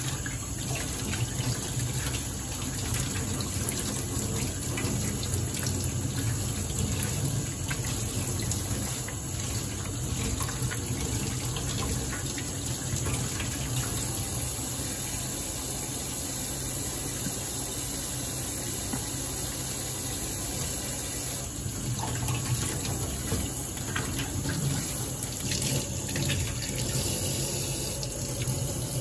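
Kitchen tap running steadily into a stainless steel sink, the water splashing over a squid being rinsed and rubbed by hand.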